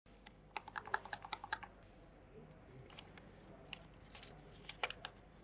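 Hand-handling noise: a quick run of small dry clicks and taps in the first second and a half, then scattered single clicks, as a vape's packaging and folded paper user manual are handled.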